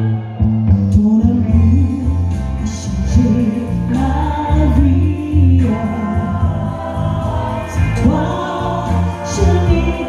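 A woman singing live into a microphone over an amplified instrumental accompaniment with a strong bass line, the voice gliding between and holding notes.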